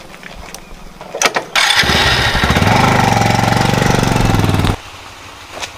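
An engine starts about a second and a half in, runs steadily with a low, even beat for about three seconds, then cuts off suddenly.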